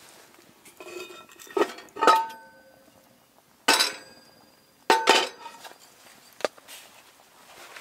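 Heavy cast iron Dutch oven lid being lifted off the pot and set aside: a series of sharp metal clanks and clinks, several of them ringing briefly.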